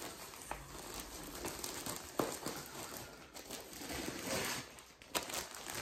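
Plastic packaging crinkling and cardboard rustling as hands dig through a shipping box, with a few sharp clicks and taps.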